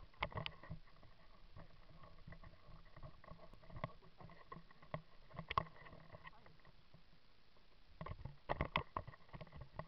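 Mountain bike rolling over a rough gravel and dirt track: scattered knocks and rattles of the bike and the camera mount, loudest in clusters near the start, about halfway through and near the end.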